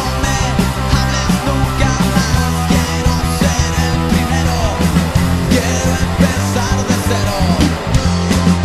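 Loud punk rock song, a full band playing without a break.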